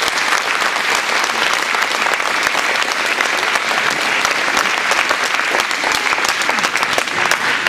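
Audience applauding, many hands clapping steadily at an even level.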